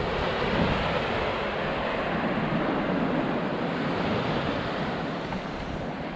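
Small waves breaking and washing onto a sandy beach in a steady rush of surf.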